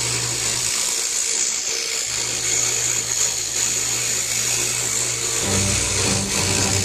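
Scroll saw running, its reciprocating blade buzzing steadily as it cuts wood along a portrait pattern. Music plays over it, its low notes changing a few times.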